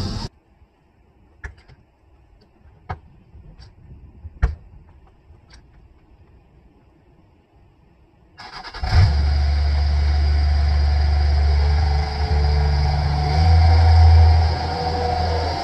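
A few faint clicks and knocks, then a John Deere 1445 front mower's diesel engine starts about eight seconds in and settles into a steady run. Its engine speed rises briefly near the end as the machine moves off.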